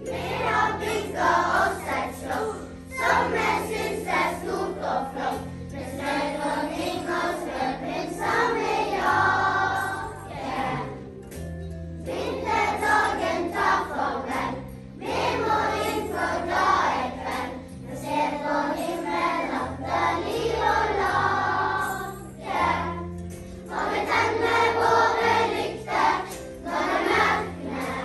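A large children's choir singing a Christmas song in phrases with short breaths between them, over low sustained accompaniment notes that change every second or two.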